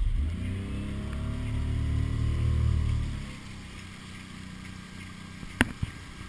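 Motorboat engine passing by, its note sinking and fading away over the first three seconds, over the wash of paddles and water. A single sharp slap is heard near the end.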